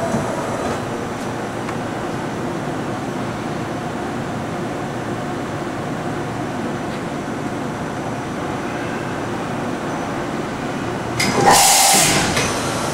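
Okuma & Howa Millac 561VA CNC vertical machining center running its program, a steady mechanical whir from the spindle and axis drives. About eleven seconds in, a loud hiss lasts about a second over the running.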